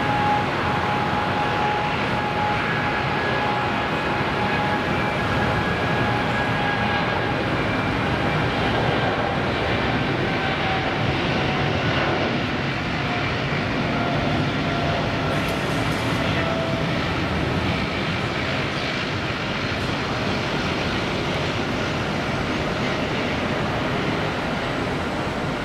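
Boeing 777's twin jet engines at takeoff thrust during the takeoff roll: a loud, steady rumble with a faint whine that slowly falls in pitch as the airliner passes.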